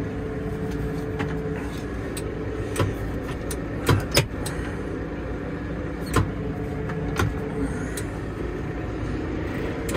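Case 125 tractor engine idling steadily, heard from inside the cab, with a handful of sharp clicks from the power-shift lever and its buttons being toggled, two close together about four seconds in.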